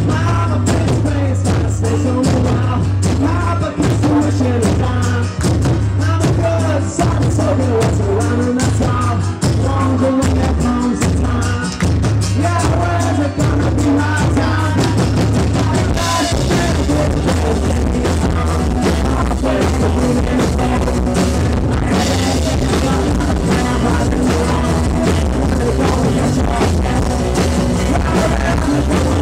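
A rock band playing live, with drums, bass and singing. The sound gets brighter and fuller about halfway through.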